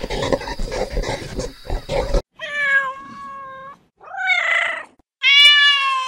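Rough, rumbling noise with sharp knocks for about two seconds, cut off abruptly, then a ginger kitten meowing three times in high calls, the second rising and falling, the last the loudest.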